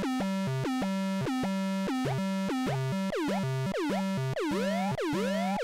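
Finegear ModMix analog mixer in no-input feedback, its feedback tones chopped into a rapid rhythmic stutter of about four pulses a second by envelope-follower modulation of the channel level. The result is a rhythmic, dirty, experimental noise. From about three seconds in, each pulse swoops down and back up in pitch.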